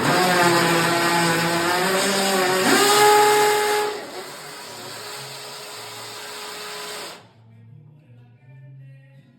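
An electric power tool's motor whining loudly, its pitch rising about two and a half seconds in. It drops lower about four seconds in and stops about seven seconds in, over faint background music.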